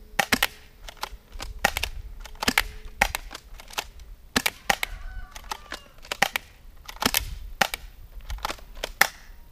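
Several airsoft guns firing together at a target: an irregular string of some twenty sharp snapping shots, sometimes two or three in quick succession.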